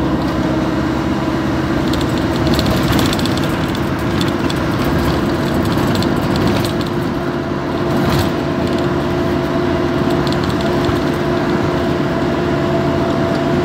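Car driving along a road, heard from inside the cabin: steady engine and road noise with a constant hum running underneath.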